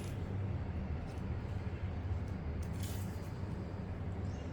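A steady low hum, with a sharp click at the start and a short scraping tick near the three-second mark as small metal parts, a washer and gear, are picked up and handled.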